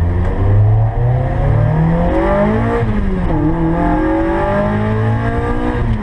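Car engine accelerating hard through the gears. Its pitch climbs steadily, dips at an upshift about halfway through, climbs again, and drops at another shift near the end.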